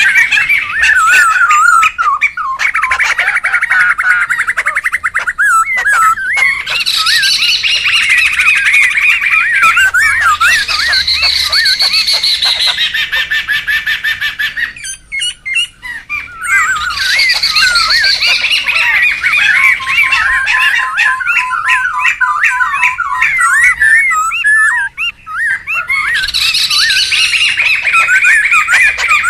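Poksay laughingthrushes calling noisily: loud, fast, wavering chatter and squawks in long continuous bouts, with a short break about halfway through and another near the end.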